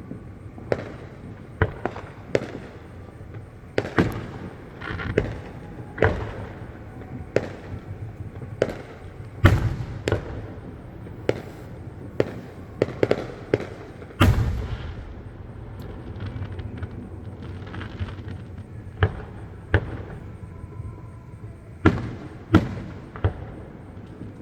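Fireworks display heard from a distance: irregular bangs and booms, each followed by a low rumbling tail, with a quick run of bangs about halfway through and a quieter spell after it.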